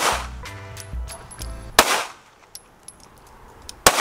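Pistol fired one-handed in slow fire: three sharp shots about two seconds apart, each with a short echo.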